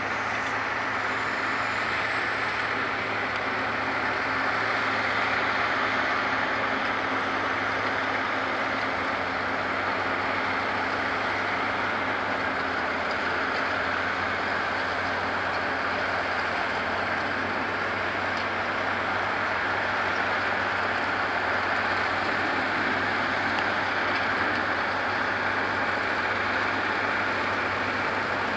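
Caterpillar Challenger MT865C tracked tractor's six-cylinder C18 diesel running steadily under load while pulling a cultivator through the soil.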